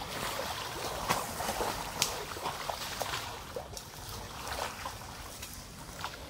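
Water buffaloes wading through shallow river water, the water sloshing and splashing around their legs and bodies, with scattered short splashes over a steady watery background.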